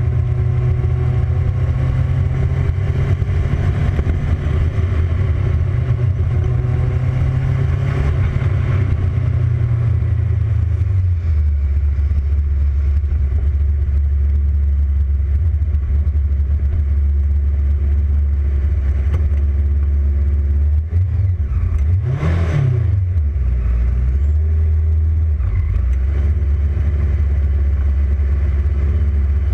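Single-seater formula race car's engine heard onboard, running at low revs as the car rolls slowly, then settling to a lower steady idle about a third of the way in. Near two-thirds through it gives one quick rev blip that rises and falls.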